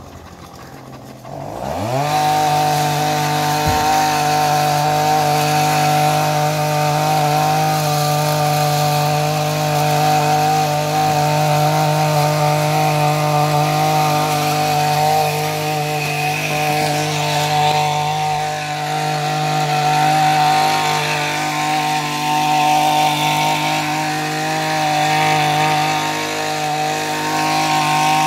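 A motorised hedge trimmer starts about two seconds in. Its motor winds up quickly and then runs steadily at high speed, holding one pitch.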